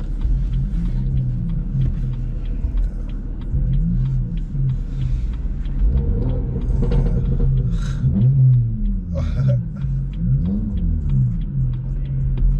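BMW M240i's B58 straight-six, remapped, with a modified Remus exhaust and downpipe, heard from inside the cabin on the move: a deep exhaust drone whose revs rise and fall several times.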